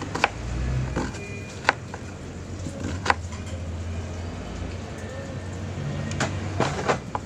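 Eating sounds: chewing and mouth noises with a few sharp clicks, the clearest about a second and a half apart and a cluster near the end, over a low steady rumble.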